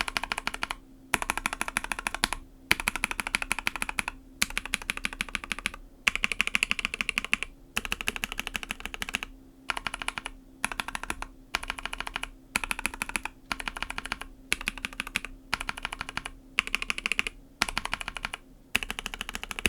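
Rapid typing on a mechanical keyboard in about a dozen short runs of keystrokes, each separated by a brief pause. This is a side-by-side sound test of different switches, Pixel linear switches among them.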